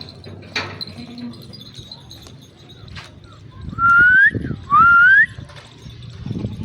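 A person whistling twice near the microphone, two loud rising whistles of about half a second each, one after the other.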